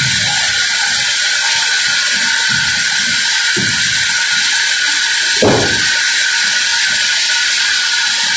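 Sawmill machinery running: a steady, loud high-pitched hiss with irregular low knocks, and one louder swell about five and a half seconds in.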